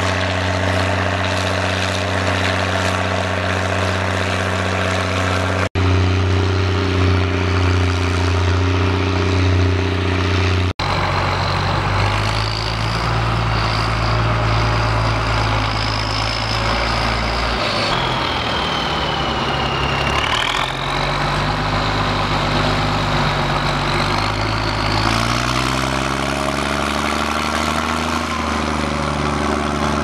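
International 1455 XL's six-cylinder turbo diesel working under ploughing load in heavy wet clay, with the deep bark of its replaced exhaust. A high whine rides over the engine and follows its speed, which sags around twenty seconds in and picks up again near the end.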